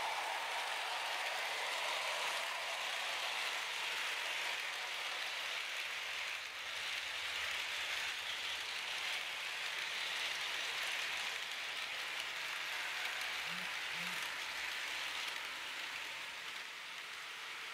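H0 model train coaches rolling along the track, a steady rushing hiss of small wheels on the rails that eases a little near the end as the train moves away.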